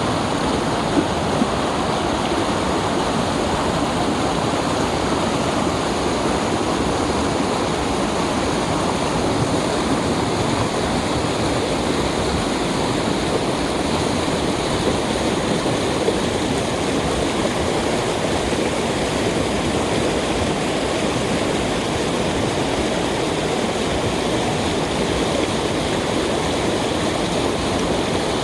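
A mountain valley stream rushing and splashing steadily over rocks.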